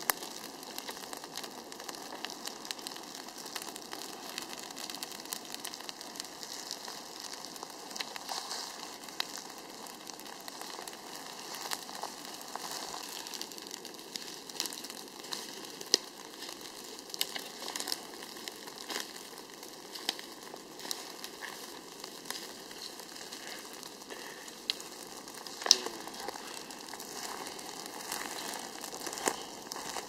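Dry grass and forest litter crackling and sizzling as a drip torch sets it alight for a backburn, with many sharp snaps scattered throughout, the loudest near the end.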